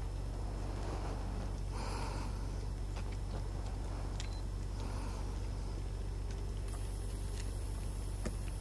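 Wind rumbling on the camera's microphone, a steady low rumble, with a few faint clicks.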